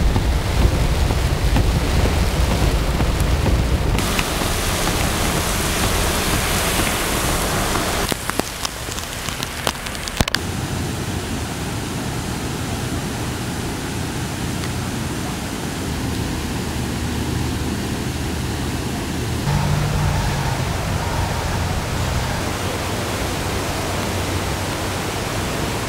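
Heavy rain and wind, with a strong low rumble in the first few seconds, then, after abrupt cuts about 4, 10 and 20 seconds in, the steady rush of fast-flowing floodwater.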